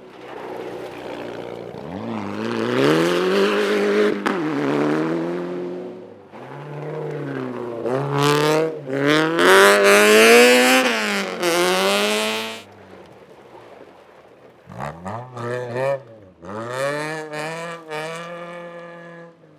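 Rally car engine revving hard and changing up through the gears as it passes on a gravel stage, with a hiss of flung gravel at the loudest point. The sound drops away sharply past the middle. Then it is heard again more faintly, accelerating through several quick gear changes.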